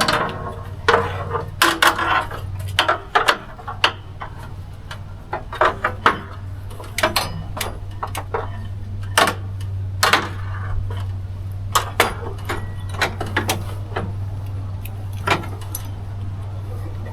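Irregular metallic clinks and knocks as winch-mounting hardware and bolts are handled and worked into their holes by hand, over a steady low hum.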